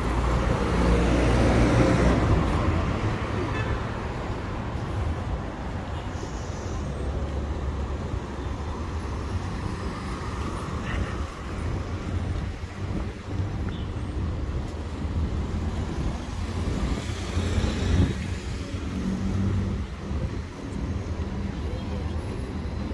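City street traffic: cars and vans passing on a road with a steady low engine and tyre rumble. One vehicle passes close in the first couple of seconds, and another swells up about three-quarters of the way through.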